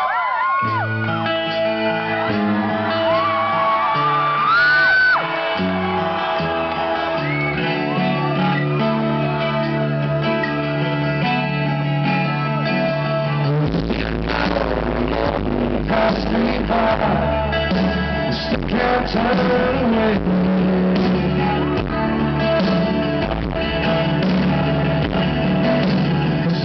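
Live rock band playing a song's opening: sustained acoustic guitar chords over bass notes, then the drums come in about thirteen seconds in and the full band plays.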